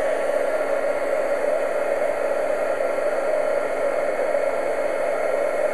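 Craft heat embossing tool running steadily, a constant blower whir and rush of hot air, melting clear embossing powder on stamped cardstock.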